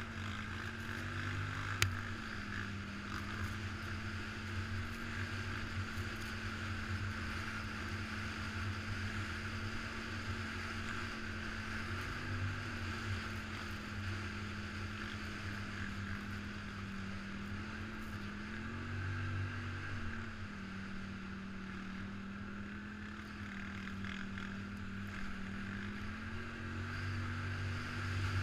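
ATV engine running while riding, its pitch rising and falling a little as the throttle opens and eases several times, over a steady rushing noise. A single sharp click about two seconds in.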